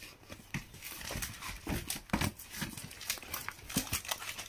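Sarees rustling and crinkling as they are handled and unfolded, with scattered light clicks and a firmer knock about two seconds in.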